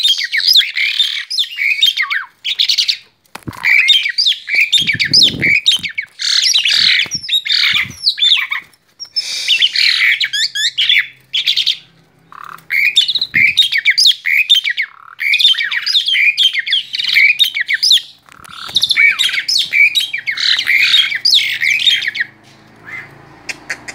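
Male Asian pied starling (jalak suren) singing in an agitated, fired-up state: loud, fast runs of harsh chatter, squawks and whistles, each lasting a few seconds with short breaks between them. The song drops away near the end.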